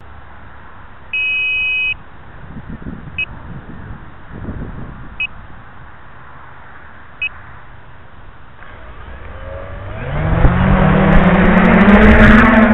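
Quadcopter's electronic beeper sounding while it rests with motors stopped: short high beeps every two seconds, with one longer two-tone beep about a second in, over low wind rumble on the microphone. About nine seconds in, the brushless motors spin up with a rising whine that levels off near the end.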